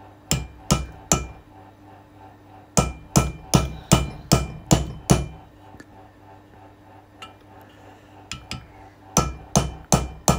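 Hammer tapping a seal-driver to seat new valve stem seals onto the exhaust valve guides of a Toyota 3UZ aluminium cylinder head. The taps come in short runs of about two or three a second: three, then seven, then a few light ones, then four more near the end.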